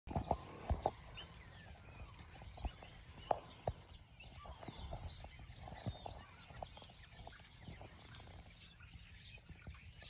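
Faint chirping and whistling of a flock of small birds perched on telephone wires, many short calls overlapping. A few sharp knocks stand out near the start and again around three and a half seconds in.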